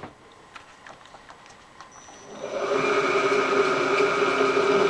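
Milling machine spindle motor starting about two seconds in, coming up to speed over half a second and running with a steady whine.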